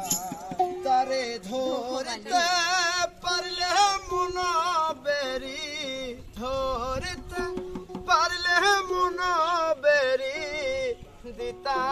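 A man singing a Bengali devotional folk song in long, wavering, ornamented phrases, accompanied by hand drums and a tambourine.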